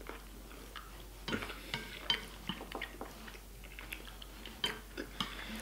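Chopsticks clicking and scraping on a plate while picking up grains of rice, in scattered light taps.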